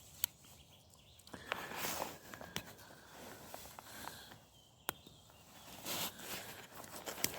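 Victorinox Evogrip 18 Swiss Army knife being handled as its tools are opened out: several faint, sharp clicks of the tools snapping, with rustling of hands and clothing between them.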